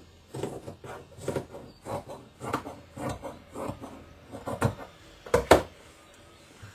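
Scissors snipping through cotton shirt fabric, a run of irregular short crunching cuts down a side seam, with a louder double snap a little after five seconds.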